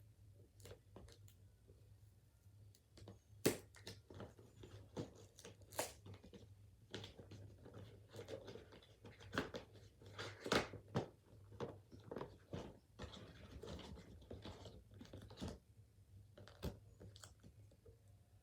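Tape being peeled and torn off packaging, with irregular crackling and clicking as the package is handled.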